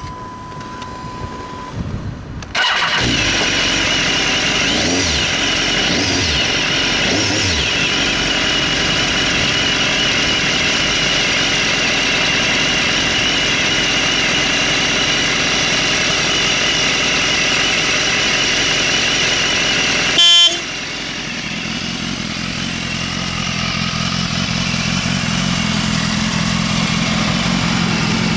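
BMW S1000RR inline-four on its stock exhaust starting up about two and a half seconds in, after a steady high tone. Its revs rise and fall a few times, then it idles steadily. About twenty seconds in there is a brief, very loud blast, and after that the idle sounds deeper, heard from beside the bike.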